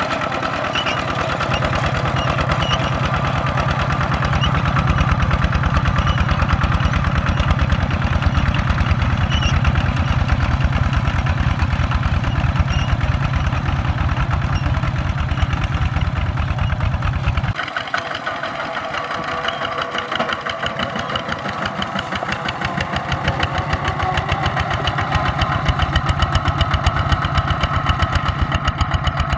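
Two-wheel walking tractor's single-cylinder diesel engine chugging steadily under load as it pulls a plough through dry soil. About two-thirds of the way in the sound changes abruptly, losing its deep low beat, and a lighter engine sound carries on.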